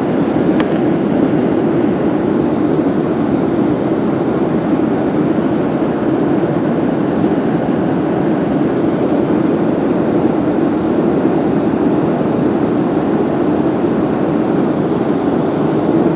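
Steady cabin noise of a Southwest Airlines Boeing 737 in flight, the engines and rushing air holding an even drone with no change in pitch or level. A faint click sounds less than a second in.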